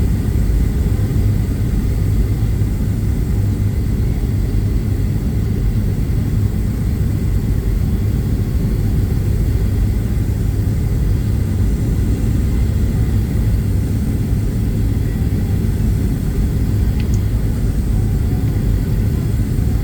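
Steady low rumble of cabin noise inside a Boeing 737-800 airliner, engines and airflow heard from a forward window seat.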